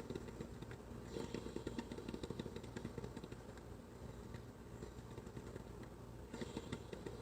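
PowerXL Grind & Go single-serve coffee maker gurgling as the last of the hot water bubbles through near the end of the brew cycle: a faint, uneven low bubbling, a little stronger about a second in and again near the end.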